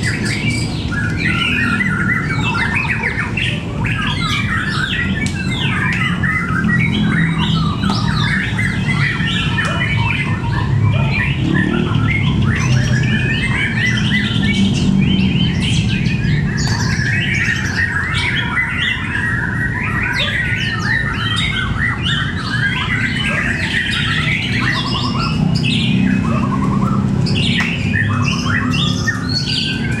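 Several caged white-rumped shamas (murai batu) calling and singing at once, a dense, unbroken jumble of quick chirps, squawks and song phrases, the birds singing against one another as fighter birds.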